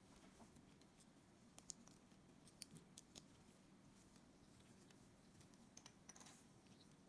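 Faint clicks and taps of small plastic building-block pieces being handled and pressed together, most of them in the first half, with a brief scratchy rustle near the end. A low steady hum runs underneath.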